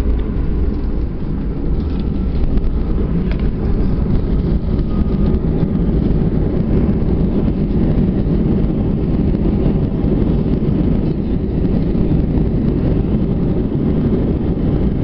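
Loud, steady low rumble inside the cabin of an Airbus A320 during the landing rollout: engine noise and wheel rumble on the runway as the jet decelerates with spoilers up. It grows louder over the first couple of seconds, then holds.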